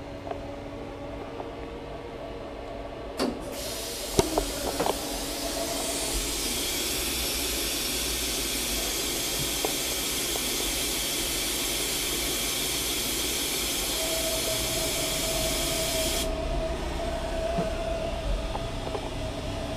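Fadal CNC vertical machining center running a program: a steady machine hum, a click about three seconds in, then a loud steady hiss that lasts about thirteen seconds and cuts off suddenly. A steady whine joins the hum near the end.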